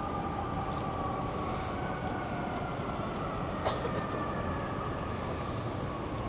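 Steady rumble of a passing heavy vehicle, with two faint high tones slowly sliding down in pitch and one sharp click about halfway through.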